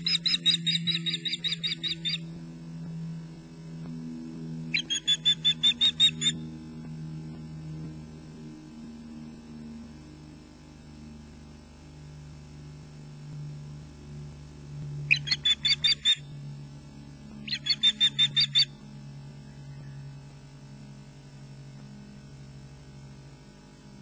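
Osprey alarm calls: four bouts of rapid, sharp whistled notes, about six a second, each bout one to two seconds long, given at an intruder. A steady low electrical hum runs underneath.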